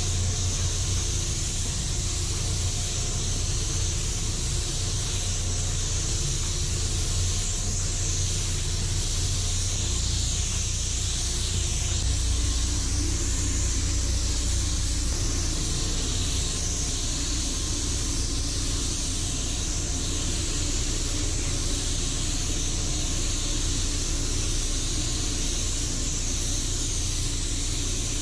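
Steady hiss of a gravity-feed paint spray gun's air, spraying metallic base coat onto car body panels, with a steady low rumble beneath.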